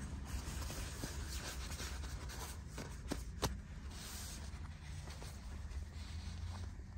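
Soft scratching and rustling on fabric as two kittens wrestle on a quilted jacket and blanket, over a steady low rumble, with a sharp click about three and a half seconds in.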